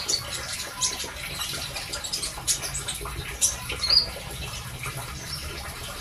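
Caged konin giving several short, high chip notes spaced irregularly, the loudest about three and a half and four seconds in.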